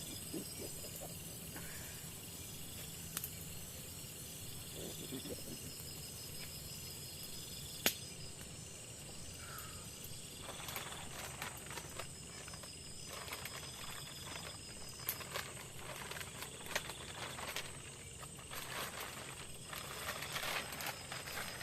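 Forest insects trilling in a steady, pulsing chorus. There is one sharp click about eight seconds in, and scattered crackling and tapping from about halfway through.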